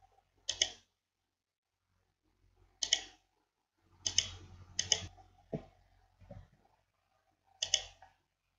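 Computer mouse clicking about seven times at uneven intervals, several clicks heard as a quick double tick of press and release, while selecting drawing tools and placing points.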